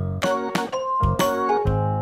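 Background music: a light keyboard tune with a steady beat.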